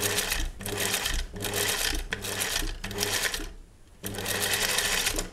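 Industrial sewing machine stitching in a series of short runs with brief stops, sewing a narrow-edge topstitch about a millimetre beside a seam. It stops for about half a second a little after three seconds in, then runs again.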